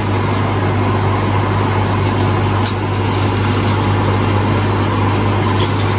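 Aquarium air pump and filter running: a steady low hum over an even hiss of bubbling water.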